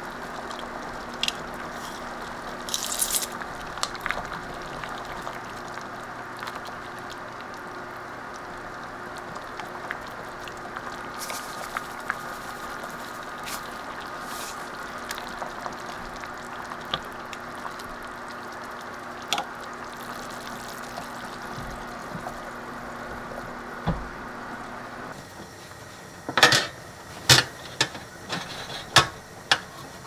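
Pot of seaweed soup boiling on the stove, a steady bubbling noise with a few scattered light clicks and taps from the utensils. Near the end the bubbling stops and several sharp clanks of a metal baking tray and wire rack take over.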